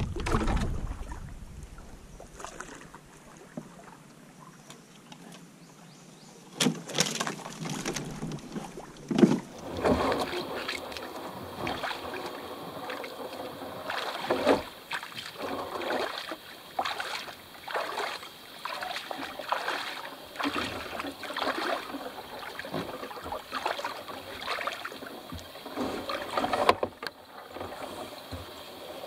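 Canoe paddling: irregular paddle strokes and splashes in the river water, with occasional knocks on the hull. A steady high-pitched hum joins about ten seconds in.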